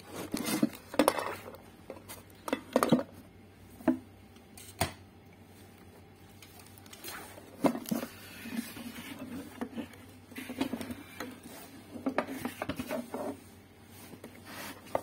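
Handling noise as a speaker cabinet and its amplifier board with a finned aluminium heatsink are turned over on a workbench: a series of knocks and clicks, then rustling and light clatter.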